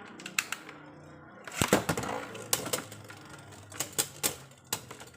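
Beyblade battle tops clashing in a plastic stadium: a run of sharp, irregular clacks that gets much louder and busier about a second and a half in.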